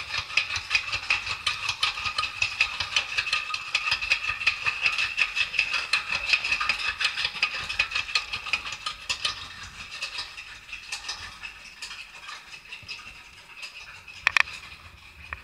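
Roller coaster lift hill: the chain lift hauls a suspended coaster train up the incline with a rapid, continuous clatter of clicks over a steady whine. The clatter grows quieter in the second half, and a single sharp clack sounds near the end as the train nears the crest.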